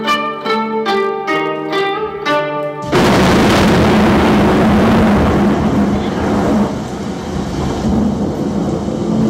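Stage performance backing track: a plucked-string melody, note after note, that about three seconds in is cut off by a sudden loud crash of noise like a thunderclap. The noise stays loud for a few seconds, then eases off under the music.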